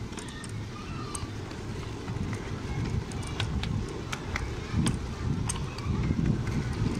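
Miniature railway train running along the track, heard from aboard: a low rumble of wheels on rail that grows louder towards the end, with scattered sharp clicks.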